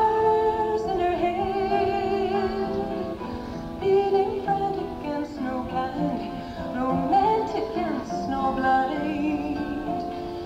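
A woman singing live over guitar accompaniment. The sound is lo-fi, from an audience member's mid-1970s microphone and cassette recorder.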